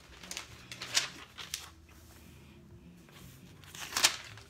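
Pages of a Bible being turned by hand: several short papery swishes, the loudest near the end.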